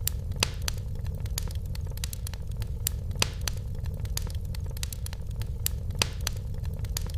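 Wood fire crackling in a fireplace: irregular sharp pops and snaps, a few louder ones about half a second, three seconds and six seconds in, over a steady low rumble of the burning fire.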